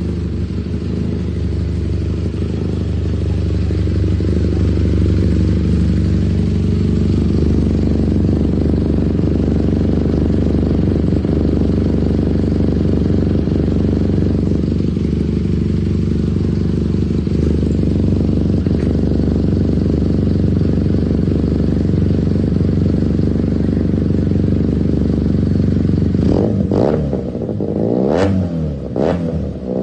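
Benelli TNT 302S parallel-twin engine idling steadily through an aftermarket Akrapovic muffler, then revved in four quick throttle blips near the end.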